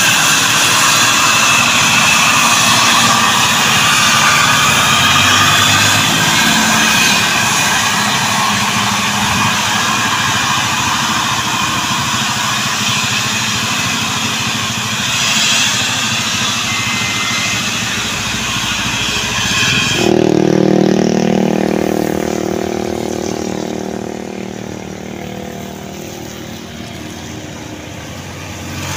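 Tadano truck-mounted crane's engine running as the crane drives by, with a high whistling whine over the engine noise that sounds like an airplane. About two-thirds of the way through it gives way to quieter, lower traffic sound: motorcycle engines passing on a wet road.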